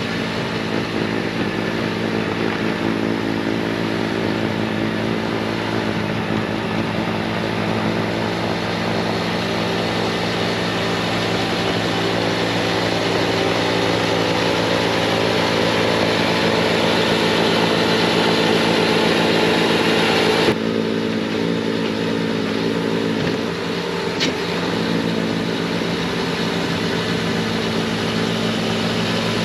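Bobcat T66 compact track loader's diesel engine running steadily at full throttle, driving its snowblower attachment through wet, heavy snow. About two-thirds of the way through, the sound changes abruptly, losing much of its upper hiss, and a single sharp click follows a few seconds later.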